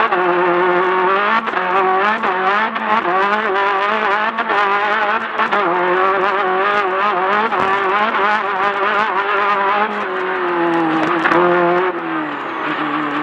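Class 10 off-road race car's engine running hard at high revs, its pitch wavering quickly up and down under constant throttle changes, with frequent knocks and rattles. The revs ease lower and steadier near the end.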